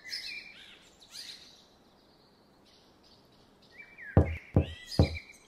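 Cartoon birds chirping softly, then three quick knocks on a garage door, about half a second apart, as the toy excavator taps the door with its bucket.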